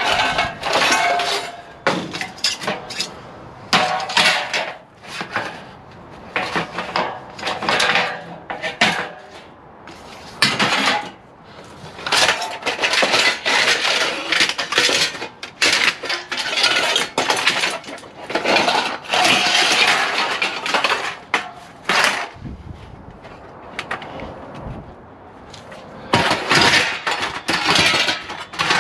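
Lengths of 6063 extruded aluminum clattering and clanking against each other as they are shifted and slid into a car's cargo area, in irregular bursts with a quieter lull about three-quarters of the way through.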